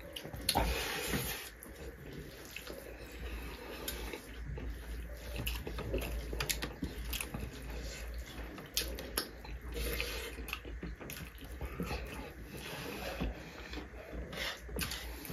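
Close-up mukbang eating sounds: wet squishing as rice is mixed with curry and dal by hand on metal plates, with chewing and many small scattered clicks and smacks.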